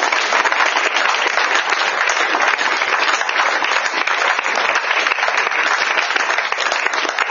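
Small audience applauding steadily, a dense, even clatter of many hands clapping.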